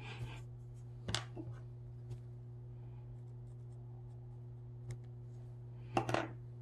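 Wooden eyeball beads being handled and worked with a small hand tool: a few light clicks and short scratchy rubs, the sharpest about a second in and again near the end, over a steady low hum.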